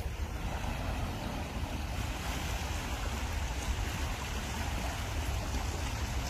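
Small sea waves lapping and washing over rocks and pebbles at the shoreline, with wind buffeting the microphone as a steady low rumble.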